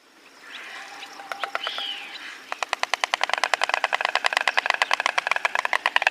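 Stork clattering its bill: a fast, even run of sharp clicks that starts about two and a half seconds in. Before it come softer bird calls with a short rising-then-falling note.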